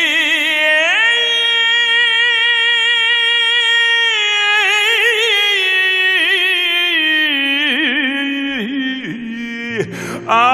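A high male cantorial voice singing chazzanut over musical backing. It holds long, high notes with vibrato and breaks into ornamented runs, dropping lower near the end before a new phrase begins.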